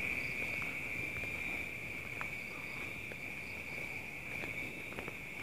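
Crickets chirring in a steady, unbroken high-pitched chorus, with a few faint clicks over a low rumble.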